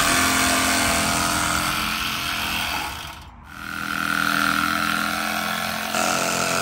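A power tool running steadily with a constant motor whine, stopping briefly about three seconds in and then running again.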